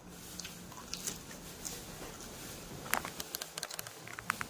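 Close-up chewing of a mouthful of raw cabbage leaf: faint wet mouth clicks here and there, crowding into a quick run of smacks and clicks from about three seconds in.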